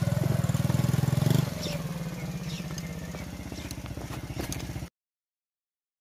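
Small motorcycle engine running at low speed with a steady low putter, dropping in level about a second and a half in, with faint clatters. The sound cuts off abruptly about five seconds in.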